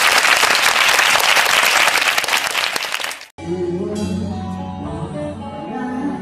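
A crowd clapping and cheering, cut off abruptly about three seconds in, followed by background music with held instrumental notes.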